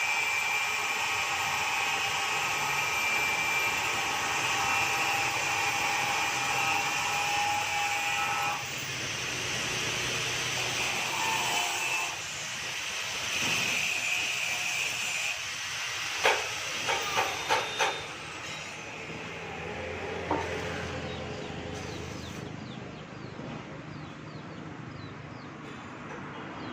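Metalworking on iron bars: a steady hiss with a high whine runs loud for about the first eight seconds and on and off after that. About two-thirds of the way through come four or five sharp metal knocks in quick succession, then one more.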